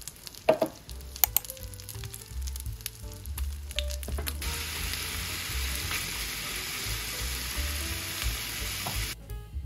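A few sharp clicks, then, from about four seconds in, the steady sizzle of oil in a hot frying pan as oyster-mushroom pancakes and spicy stir-fried pork cook, cutting off sharply shortly before the end.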